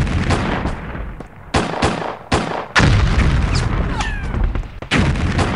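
Gunfire: a string of loud single shots at irregular intervals, about ten in all, each ringing on with a long echo.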